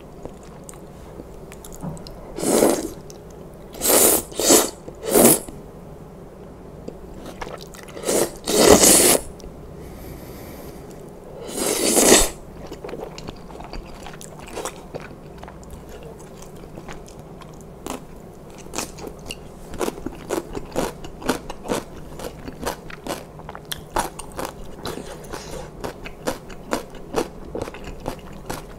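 Close-miked eating of knife-cut noodles (kalguksu) in broth. There are several loud slurps in the first half as the noodles are drawn into the mouth, then a run of wet chewing with many small mouth clicks.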